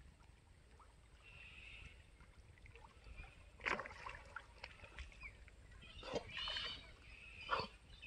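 Dog swimming, paddling through pond water with faint splashing. A few short, sharper sounds come about halfway through and near the end, over a low rumble.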